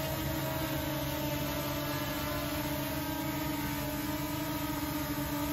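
Small folding quadcopter drone hovering and flying low, its four propellers giving a steady whine made of several stacked tones that waver slightly in pitch as it moves.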